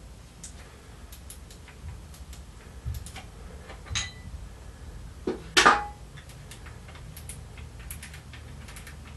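Aluminium piston rod cap on a Showa cartridge fork clicking as it is unscrewed from the piston rod with an end wrench: a scattered run of small clicks, with two louder metal knocks about four and five and a half seconds in, the second with a brief ring.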